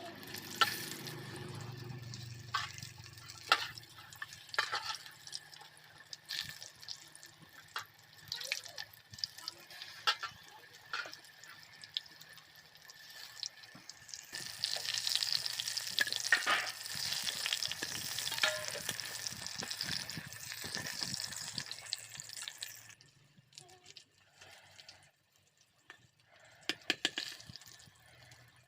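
Bean pakoras frying in hot oil with a sizzle and clinks and scrapes of a metal utensil against the pan. The sizzle swells about halfway through and drops away a few seconds before the end.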